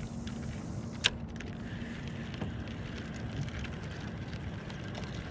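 Steady wind rumble on the microphone with small water ticks against a plastic kayak hull, and one sharp click about a second in.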